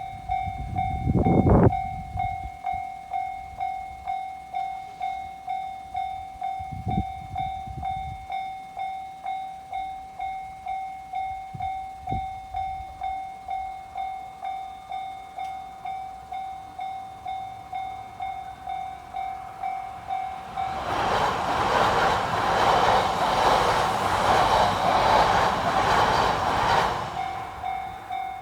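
Japanese level crossing's electronic warning bell ringing steadily, about one and a half strikes a second. About two-thirds of the way in a Shinkansen train rushes through the crossing for about six seconds, its noise drowning the bell, which then rings on. A brief low rumble near the start is the loudest moment.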